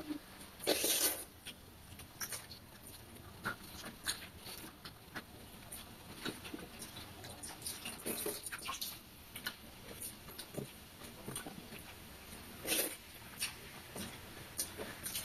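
Close-up eating sounds: mouth smacking and chewing, and fingers mixing water rice (pakhala) in steel bowls, heard as scattered short wet clicks and smacks. A louder cluster comes about a second in, and others come near the end.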